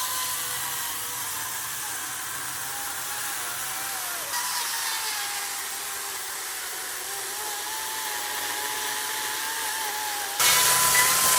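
Chainsaw running and cutting the end off a log, its whine sagging in pitch under load and recovering. It gets suddenly louder near the end.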